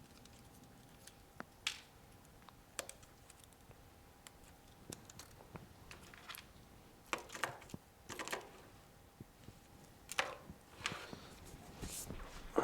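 Scattered light clicks and taps of small parts and tools being handled on a workbench, busier in the second half, over a faint steady whine.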